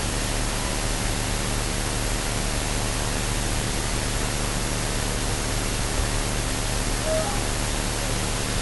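Steady hiss with a low hum underneath: the amplified noise floor of an EVP recording from a quiet room.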